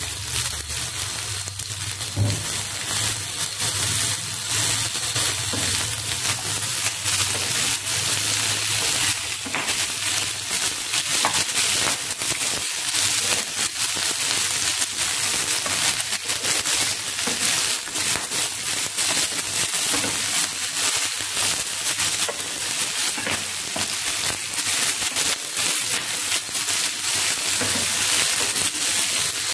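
Ripe red chillies frying in hot oil in a nonstick pan: a steady sizzle with a dense, fine crackle. A ladle stirs them now and then.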